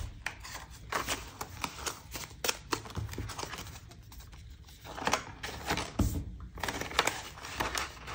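Dollar bills and the pages of a ring-binder cash envelope being handled: rustling paper and a run of light clicks and taps, quieter for a moment around the middle.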